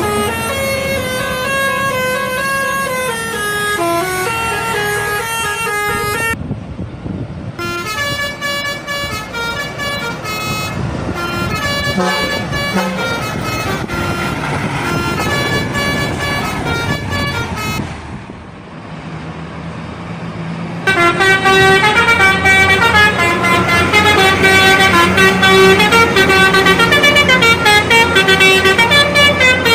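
Indonesian bus telolet horns, sets of air-horn trumpets playing quick stepped melodies of several notes at once, over a bus engine running underneath. The horns dip briefly past the middle, then come back louder.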